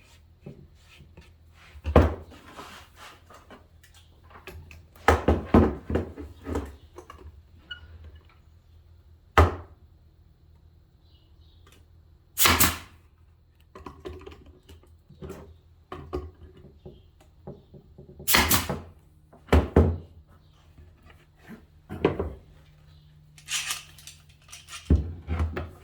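A brad nailer firing brad nails into the bottom of a wooden box's corner joints: several sharp separate shots a few seconds apart, with knocks and clatter of the wood pieces being handled between them.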